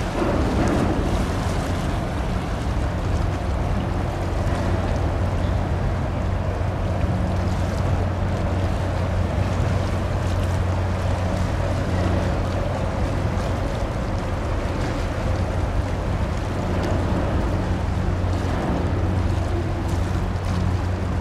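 Steady low drone of a ship's engines, with wind and water noise over it.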